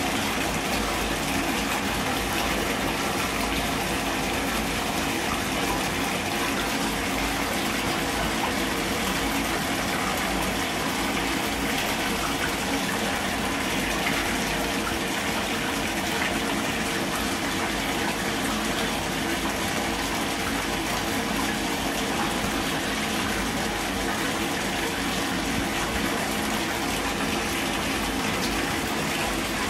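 Steady rush of running water, like a tap filling a bathtub, with a faint hum under it.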